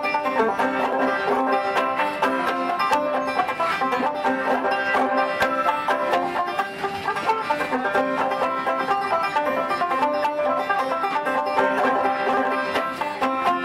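Open-back banjo with a natural skin head, played clawhammer style: a steady, unbroken run of plucked notes in an instrumental tune, with no singing.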